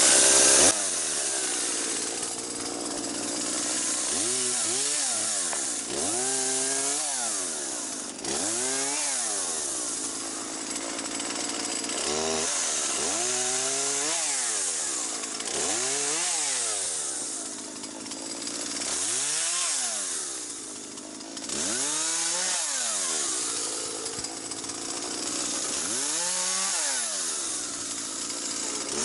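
Chainsaw running, its engine speed rising and falling over and over, about every two seconds, as it is throttled through cuts.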